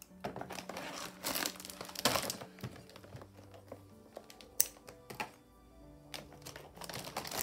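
Crinkling and rustling of a bag or wrapping being handled, with a couple of sharp clicks, over soft background music.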